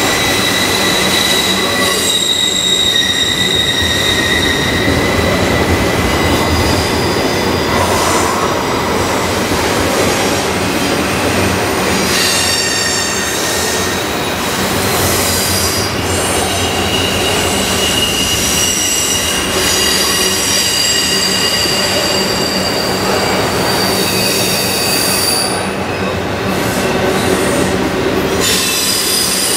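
Freight train of double-stacked intermodal container cars rolling past, a steady rumble of wheels on rail. Over it, several high steel-wheel squeals keep starting, stopping and changing pitch.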